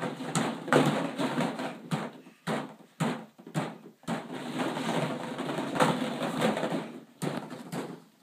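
Hollow plastic ball-pit balls clattering against each other and the plastic pool as a baby moves through them: irregular sharp clacks, with a denser rustle of shifting balls in the middle.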